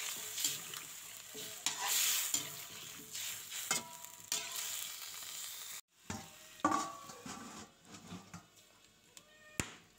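Potato and cauliflower pieces sizzling in a pan while being stirred with a spatula, with scraping knocks against the pan. About six seconds in the sizzle cuts off and a few metal clinks follow as a steel plate is handled over the pan.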